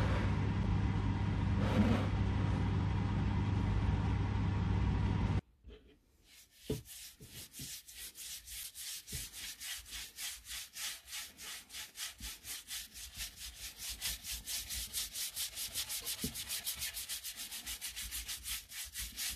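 Table-mounted router with a chamfer bit running steadily while chamfering the edge of an end-grain cutting board; it cuts off suddenly about five seconds in. After a short pause, a cloth wipes oil over the end-grain board in quick, even rubbing strokes, about three a second.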